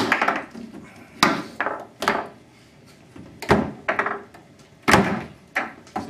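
Foosball table in play: irregular hard clacks and knocks of the ball being struck by the men and banging against the table's walls, about eight in a few seconds.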